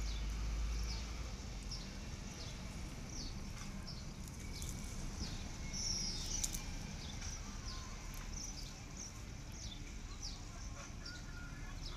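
Small birds calling: short, high, falling chirps repeated one or two times a second, with a brief louder cluster of calls about six seconds in.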